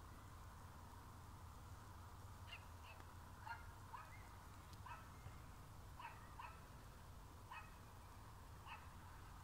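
A dog barking faintly: a string of short, sharp barks, some in quick pairs, starting about two and a half seconds in, over a low steady hum.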